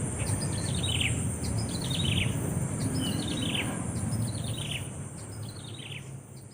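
Bird calling: a quick falling cascade of chirps, repeated about once a second and growing fainter near the end. A steady high-pitched drone, like insects, and a low rumble run underneath.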